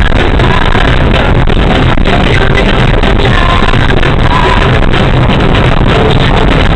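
Music with singing playing inside a moving car's cabin, mixed with steady road noise.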